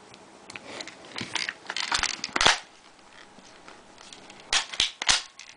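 Sharp plastic clicks and rattles from a spring airsoft pistol being handled and fitted back together after its spring was stretched. The loudest clicks come about two and a half seconds in, then three quick ones near the end.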